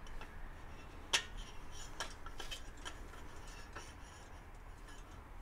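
Light clicks and clinks of small metal workbench parts being handled, a few separate taps, the sharpest about a second in.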